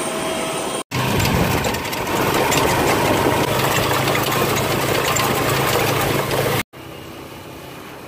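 Small motorcycle-rickshaw engine running with a steady low hum while riding through street traffic. It breaks off suddenly twice, and near the end a quieter ride follows.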